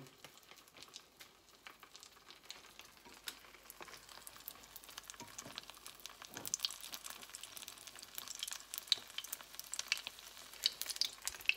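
Chicken shami kabab shallow-frying over low heat in a little oil in a frying pan: a soft, steady sizzle with scattered crackles and pops that come more often in the second half.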